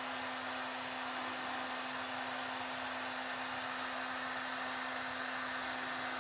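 Heat gun blowing steadily: an even rushing hiss with a low steady hum under it.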